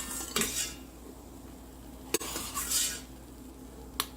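Metal spoon scraping and clinking against the Instant Pot's stainless steel inner pot while roasting cashews and raisins in ghee: a few separate scrapes and clicks, about a second in, near the middle and near the end.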